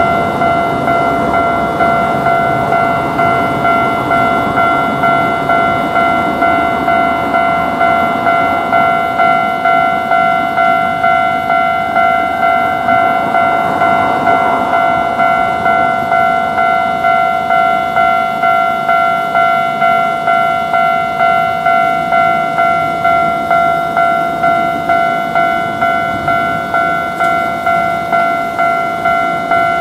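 Japanese level-crossing warning bell ringing its repeated 'kan-kan' at about two strikes a second throughout. A train runs past in the first half, its running noise fading away after about 15 seconds.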